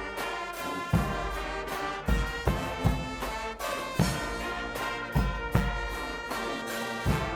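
Guggenmusik carnival band playing: brass instruments hold loud chords over deep drum strikes that come roughly once a second.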